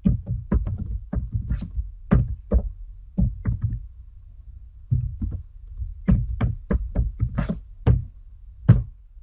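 Computer keyboard typing: an irregular run of keystrokes with a short pause about four seconds in and one louder stroke near the end.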